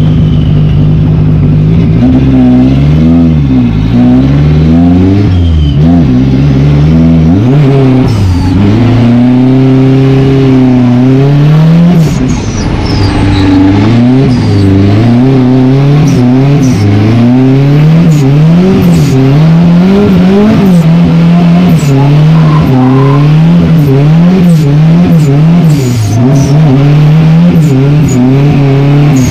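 Turbocharged Chevrolet Chevette engine heard from inside the cabin, revving up and down again and again under hard throttle while drifting. About twelve seconds in it drops off briefly, then keeps rising and falling about once a second.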